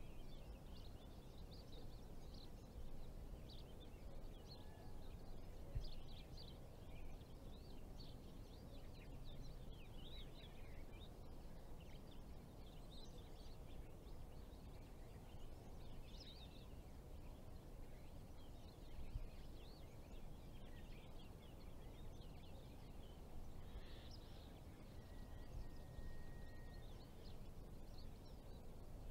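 Faint outdoor ambience: scattered short, high bird chirps throughout over a low, steady background rumble.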